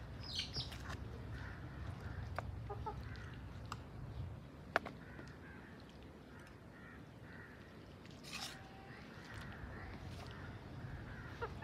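Chickens clucking faintly in the background, with a few sharp clinks of a metal serving spoon against a pan, the loudest about five seconds in.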